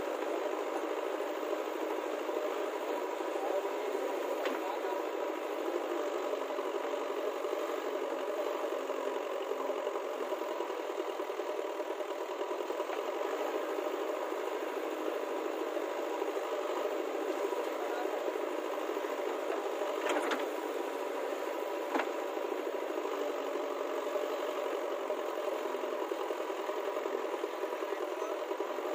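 Diesel engine of a JCB backhoe loader running steadily under load as it digs with its rear arm, with a rattly drone and two sharp knocks in the second half.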